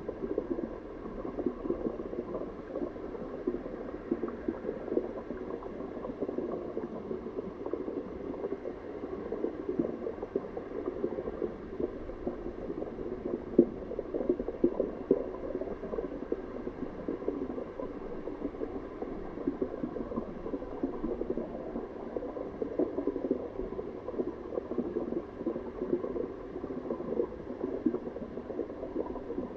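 Water bubbling and gurgling steadily, with a dense crackle of small pops.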